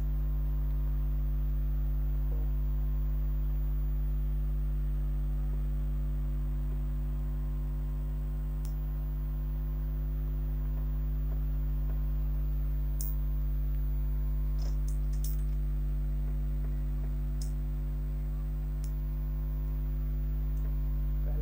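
A steady low electrical hum, with a few faint clicks and two faint high whines of several seconds each, from an HP DeskJet 2331 inkjet printer slowly working through its first print. The first print takes longer because the printer is aligning.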